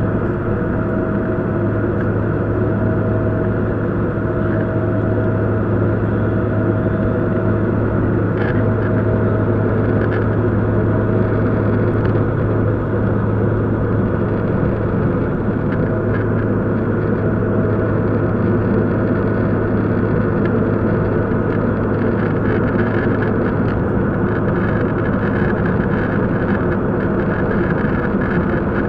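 Cabin noise inside a Bombardier CRJ700 in flight: the steady drone of its rear-mounted General Electric CF34 turbofan engines and rushing airflow, with a strong low hum throughout.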